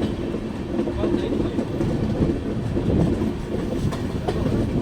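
Express passenger train running along the track: a steady rumble of wheels on rails with a few faint clicks.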